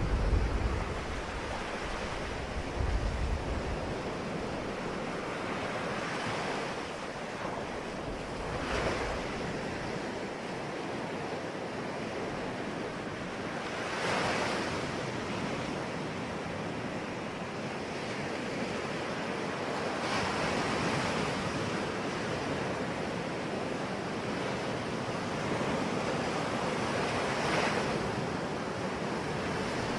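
Sea waves breaking and washing onto the shore: a steady surf with a fresh wave surging every five or six seconds.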